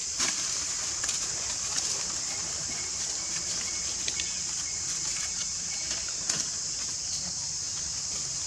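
Steady high-pitched drone of an insect chorus, with a few sharp clicks scattered through it, the loudest near the start and about six seconds in.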